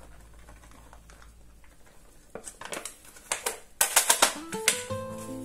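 A quick run of light taps and clicks, loudest about four seconds in, as diced chorizo is tipped into the tray. Background music comes in near the end.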